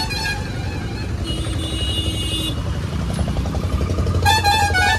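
Motorcycle riding along a busy highway, its engine and road rumble steady underneath. Vehicle horns honk three times: briefly at the start, for about a second near the middle, and again near the end.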